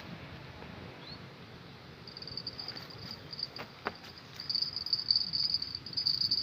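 An insect trilling at a high, steady pitch. It starts about two seconds in and grows louder a couple of seconds later. Two sharp clicks come just before it swells.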